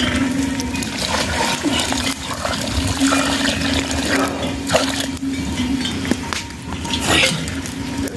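Water splashing and pouring, with scattered clicks and knocks over a steady low hum.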